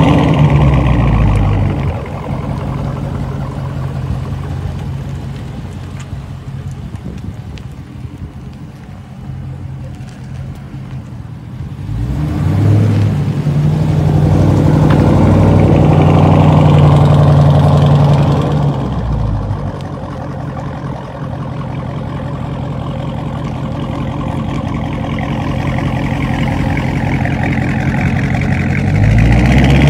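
Dodge Charger Scat Pack's 6.4-litre HEMI V8 exhaust, loud at first as the car pulls away, then quieter, then swelling into a loud drive-by about twelve seconds in and fading. It grows louder again near the end as the car comes back close.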